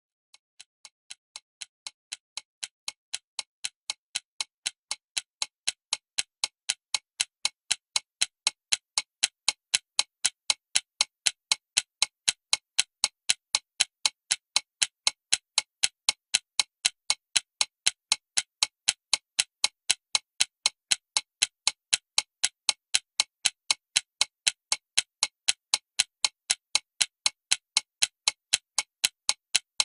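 Mechanical alarm clock ticking evenly, about three ticks a second, growing louder over the first several seconds and then holding steady.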